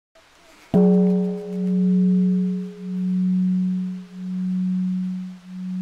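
A deep bell struck once about a second in, ringing on with a steady hum that swells and fades in slow pulses about every second and a quarter.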